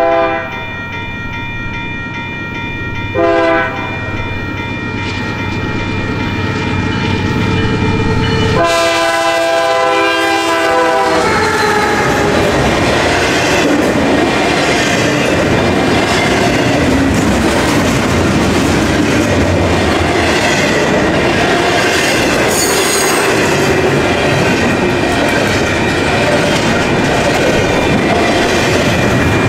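A CP Rail GE AC44CW diesel freight locomotive approaches sounding its K3 air horn: a short blast, a second short blast about three seconds later, then a longer blast of a couple of seconds. Then the steady rumble and clickety-clack of the intermodal train's cars rolling past at speed.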